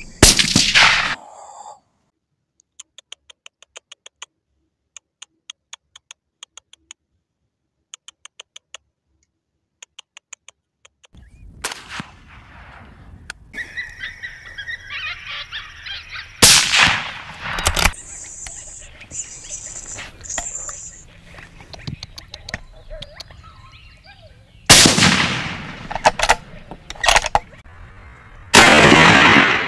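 Rifle shots: loud, sudden cracks right at the start, twice about halfway through, and twice in the last five seconds. Faint, rapid clicking comes in short groups in the quiet stretch before them.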